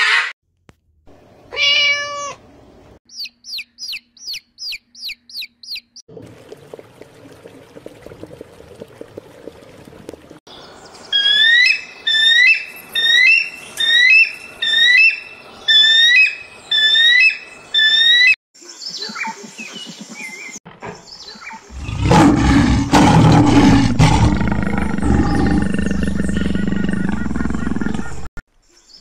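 A run of different animal calls one after another: a quick series of short chirps, then about eight loud rising calls repeated every second or so. Near the end comes a deep, rough call lasting several seconds, the loudest sound here.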